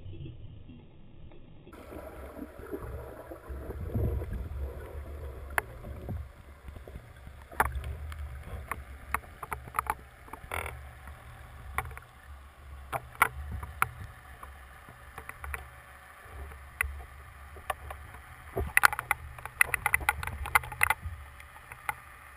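Underwater sound recorded through a camera housing: a steady low rumble of water with scattered sharp clicks and crackles, which thicken into a busy patch near the end.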